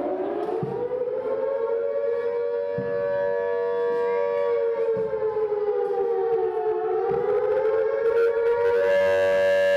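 Air-raid siren wailing in one long continuous tone: its pitch winds up at the start, sags slowly and then rises again near the end.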